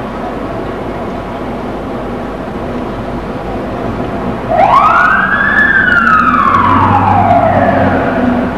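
A fire engine's mechanical siren starts about halfway through: it winds up quickly to a high wail, then slowly winds down over several seconds. Before it there is a steady rumble of the truck's engine and street traffic.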